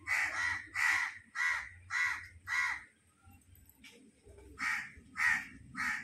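Crows cawing overhead: a quick run of five harsh caws, a short pause, then three more near the end.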